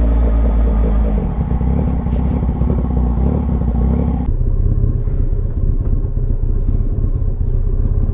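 Yamaha MT-09's three-cylinder engine running steadily on the move. The engine note changes abruptly about four seconds in.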